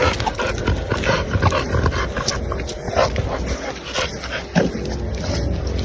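A dog making short small sounds close by, with many quick sharp clicks over a steady low rumble.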